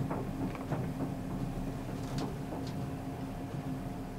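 Chinese diesel air heater running at idle, its fan turning slowly with a steady hum after the thermostat has cut it back from full power. A few faint clicks sound through it.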